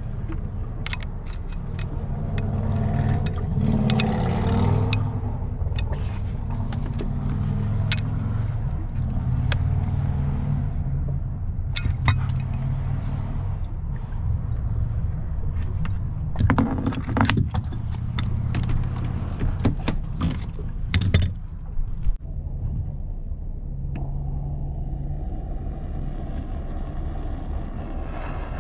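Scattered clicks and knocks of a hand tool working on a bonding-wire connector at the outboard bracket, over a steady low hum; a thin high whine joins in about 24 seconds in.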